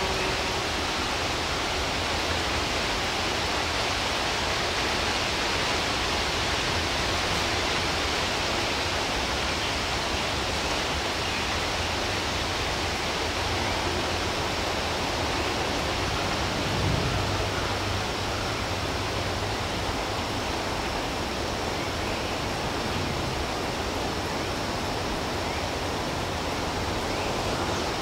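Steady outdoor ambience: an even, unbroken hiss, strongest in the upper range, over a low rumble.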